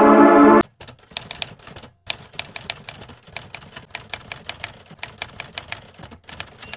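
A sustained chord of ambient music cuts off about half a second in, followed by a typewriter sound effect: rapid, uneven key clacks with a brief pause about two seconds in.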